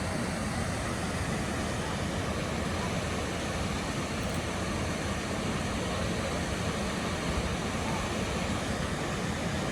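Steady roar of rushing river water pouring over falls.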